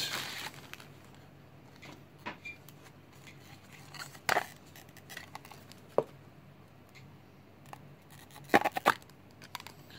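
Handling of a hard plastic direct-fit bullion capsule: a few separate sharp clicks and taps with faint rustling between them, the loudest a quick double knock near the end.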